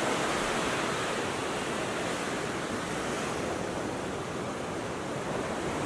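Steady wash of ocean surf with some wind, an even hiss with no single event standing out.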